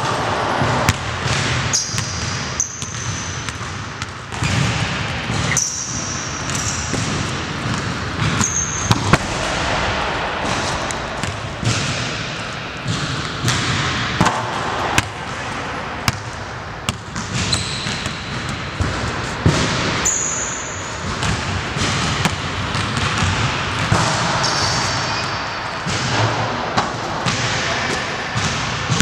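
A basketball bouncing and thudding on a hardwood gym court again and again at an irregular pace, with a few short, high sneaker squeaks.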